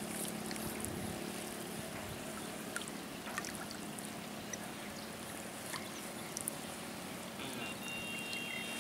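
Water trickling and dribbling in shallow water, with a steady low hiss and scattered small ticks and drips, typical of a wet cast net being handled and hauled.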